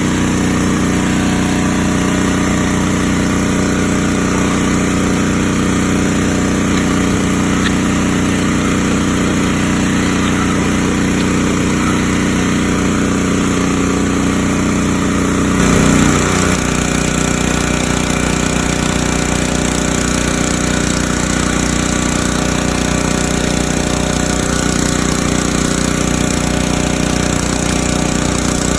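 Engine-driven pressure washer running steadily. A little over halfway through there is a brief louder surge, and the engine note shifts and then holds steady again.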